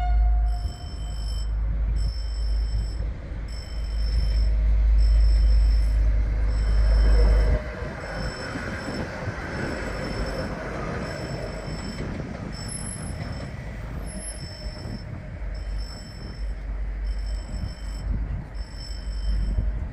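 Level-crossing warning signal sounding a repeating high electronic tone throughout, while a Stadler FLIRT diesel multiple unit passes over the crossing. Its rush of wheels and running gear peaks around ten seconds in and then fades. A loud low rumble fills the first seven seconds and stops abruptly.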